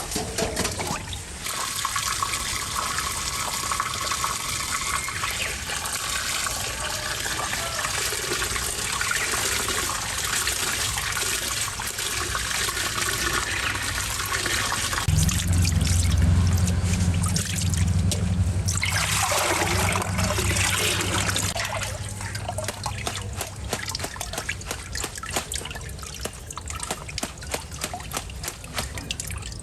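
Running water trickling and splashing steadily. A low hum joins in for a few seconds midway.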